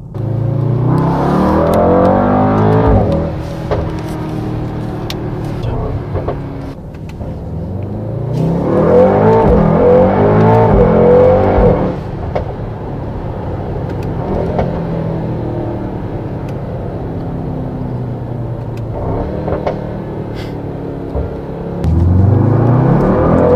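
Mercedes-AMG GT63 S's 4-litre V8 accelerating hard three times, a little after the start, in the middle and near the end, its pitch climbing through the gears. In between, the engine runs at a steadier, quieter cruise. Heard from inside the cabin.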